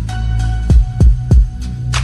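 Background music with a steady deep bass and three heavy bass-drum hits falling in pitch in quick succession, a little under a second in. A short hissing hit comes near the end.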